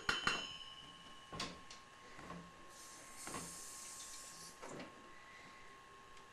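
Spoon and saucepan knocking and clinking a handful of times while water is measured into the pan, with a short hiss a little past the middle.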